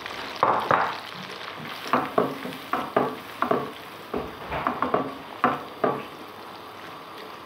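Chopped onions frying in melted butter with a steady sizzle, while a utensil stirs them, scraping and knocking against the nonstick pan in a dozen or so short, sharp strokes.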